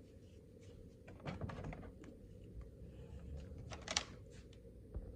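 Light clicks and taps from a boxed model airplane being handled, with one sharper click about four seconds in.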